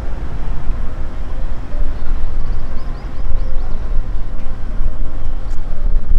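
Wind buffeting the microphone: a loud, gusting low rumble that rises and falls unevenly.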